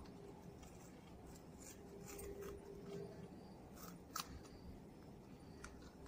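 Scissors snipping through a green coconut leaf: a few faint, short snips spread out, the sharpest one about four seconds in.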